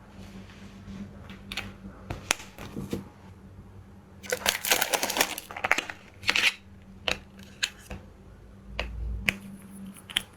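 Makeup packaging being handled: scattered clicks and taps, with a burst of crinkling rustle about four seconds in that lasts over a second. A steady low hum runs underneath.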